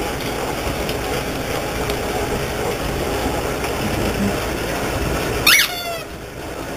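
Chihuahua puppies play-fighting, with a steady rumbling play-growl, then a short high yelp that falls in pitch near the end.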